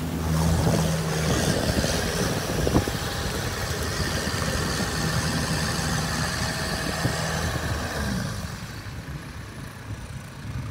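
Sherp amphibious ATV's engine running steadily as the vehicle drives out of shallow water onto sand, its large tyres splashing and churning the water in the first couple of seconds. A single sharp knock sounds about three seconds in, and the engine gets quieter near the end as the vehicle moves past.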